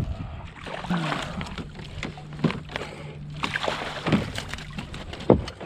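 Water splashing and sloshing beside a boat as a hooked shoal bass is fought to the boat and landed. Sharp knocks against the boat come now and then, the loudest near the end, over a steady low hum.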